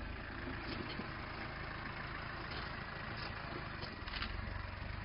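Vehicle engine idling steadily at a low rumble.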